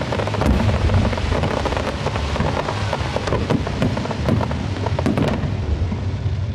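Aerial fireworks going off: low booms from the bursting shells and a dense, continuous crackle of sparks.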